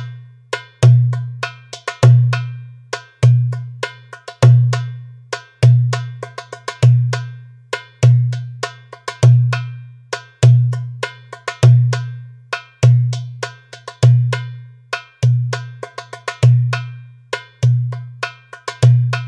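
Toumbeleki (Greek goblet drum) playing a steady tsifteteli rhythm at 100 bpm: a deep doum stroke a little over every second, with quick, sharp tek strokes in between.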